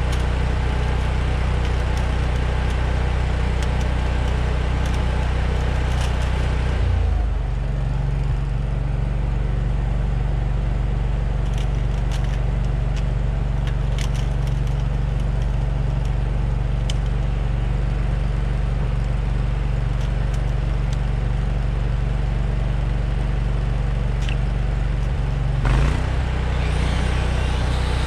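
An engine idling steadily, its speed stepping down about seven seconds in and back up near the end. Light clicks and rustling of yellow plastic spiral hose wrap being handled ride over it.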